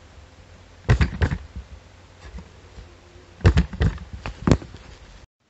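Plywood walking Moai kit stepping down a wooden slope, its eraser-soled feet and wooden body parts knocking on the board: two knocks about a second in, then a quicker run of four or five about three and a half seconds in. A low steady hum lies underneath until the sound cuts off abruptly near the end.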